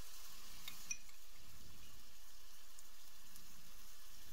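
Onions and oil sizzling steadily in a stainless steel frying pan around a dollop of crème fraîche just added, with a faint tick just under a second in.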